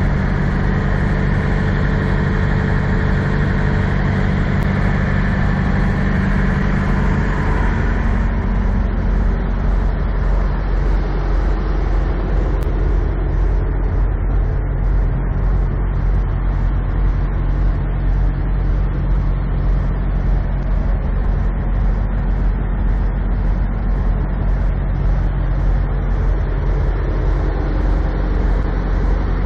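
Diesel engines of parked semi trucks idling: a steady low drone with a hiss above it that thins out about eight seconds in.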